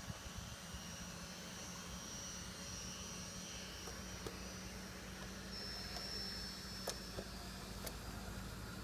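Electric drive motors and gearboxes of an analog USA Trains G-scale New York Central PA-1/PB-1 model locomotive set whining steadily as it runs. The set has no sound module, so this is mechanical running noise, with a few light clicks in the second half.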